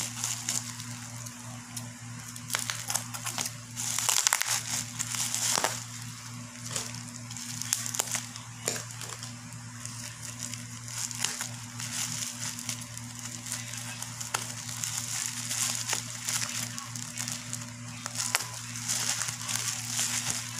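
Bubble wrap crinkling and rustling as hands unwrap it, with many short sharp crackles throughout.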